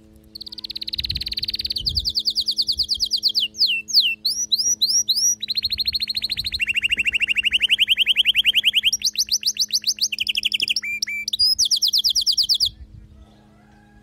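Canary singing a long song made of fast trills, each a rapid run of repeated notes, with a few quick rising-and-falling whistled notes about four seconds in. The song stops abruptly near the end. A steady low hum runs underneath.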